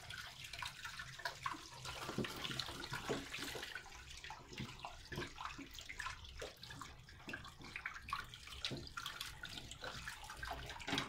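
Tap water running into an enamel pot while hands rinse raw meat and bones in it, with irregular splashing and sloshing as the pieces are rubbed under the stream.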